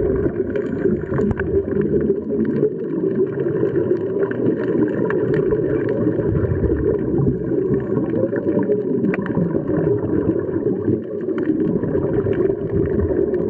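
Muffled underwater noise picked up through a camera's waterproof housing: a steady low rush with scattered faint clicks.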